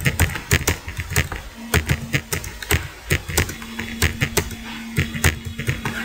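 Typing on a computer keyboard: irregular key clicks, a few a second, as a search query is typed out.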